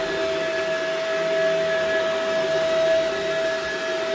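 Shark upright vacuum cleaner running over an area rug, its motor holding a steady whine over the rush of suction.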